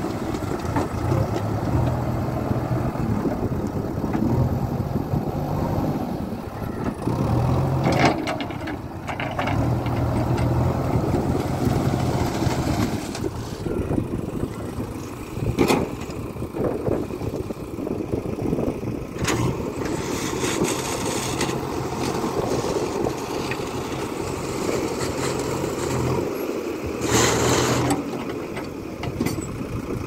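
JCB 3DX backhoe loader's diesel engine running and revving up and down under hydraulic load as the backhoe works, with crushed stone clattering several times and a longer pour of stone near the end.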